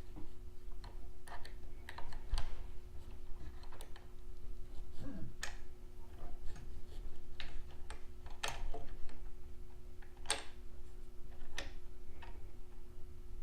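Irregular light metal clicks and taps of a small wrench turning the eccentric nuts on the Ender 3's V-slot carriage wheels, tightening wheels that were moving freely. A faint steady hum runs underneath.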